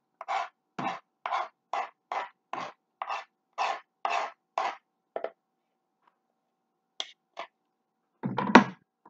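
Knife blade scraped repeatedly across a cutting board, pushing chopped onions and peppers into a stainless steel bowl: about a dozen short strokes, two or three a second, for the first five seconds. Near the end comes a louder clatter.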